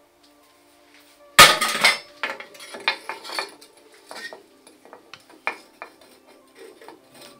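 Metal clatter and clinking of a steel bicycle frame and tools being handled: a loud clank about a second and a half in, a quick run of clinks over the next two seconds, then a few lone clicks and taps.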